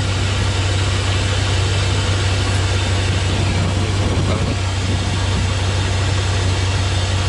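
Pickup truck engine idling steadily while still cold, with a constant low hum underneath.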